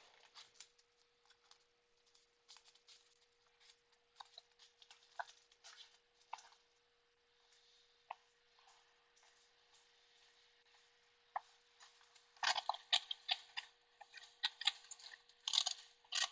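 Rummaging through small items while searching: scattered clicks, taps and rustles, growing busier and louder about three-quarters of the way in, over a faint steady hum.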